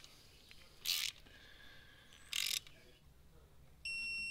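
A ratchet wrench clicking in three short strokes as the clutch pressure plate bolts are run down. A short, high electronic beep follows near the end.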